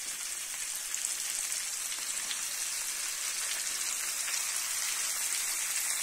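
Flour-dredged roach sizzling in hot oil in a frying pan: a steady hiss with faint pops, growing slightly louder.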